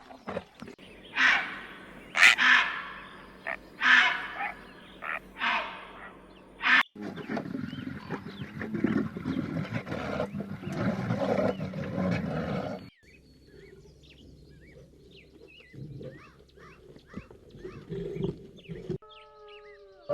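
A run of different animal calls: about six loud calls in the first seven seconds, then a dense rough stretch that stops suddenly, then fainter short bird-like chirps, with a held pitched call starting near the end.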